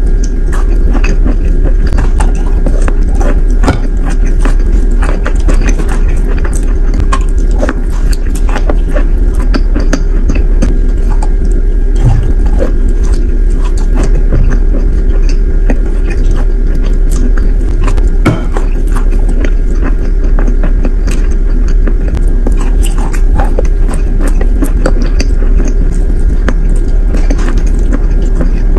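Close-miked biting and chewing of wet, clay-like chalk: a long run of small, irregular crunches and crackles over a steady low hum.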